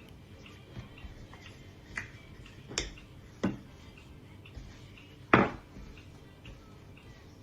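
Kitchenware being handled: a few separate knocks and clinks, the loudest a little past halfway with a short ring after it, over faint small ticking.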